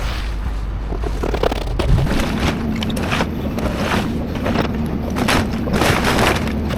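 Excavator engine running under load, with a steady drone setting in about two seconds in. Over it come repeated crunching and scraping of building debris being torn apart.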